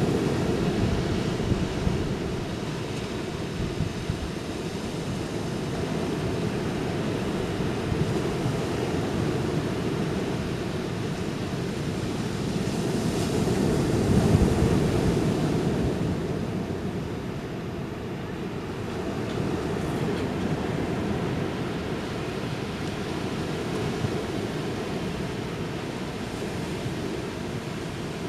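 Ocean surf washing onto a beach in a continuous rush, with one wave swelling louder about halfway through. Wind rumbles on the microphone underneath.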